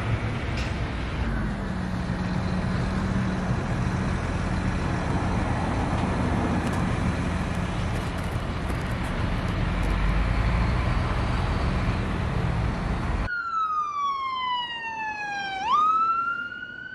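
Busy road traffic: cars and lorries going past with a low heavy-engine hum. About thirteen seconds in it cuts suddenly to an ambulance siren wailing, one slow falling sweep, then rising again.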